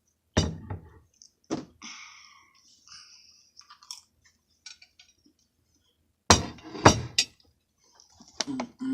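Eating at the table: sharp clinks and knocks of cutlery and dishes, loudest in a quick run of three near the end, with chewing between them.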